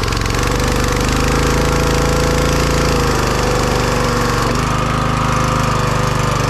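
Small gas engine of a new Simpson 3100 PSI pressure washer running steadily on its first start, its speed shifting slightly a couple of times as it settles.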